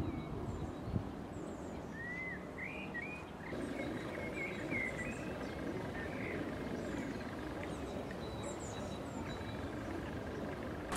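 Small birds chirping and calling in short rising and falling notes, most busily in the first few seconds, over a steady low rumble of outdoor noise.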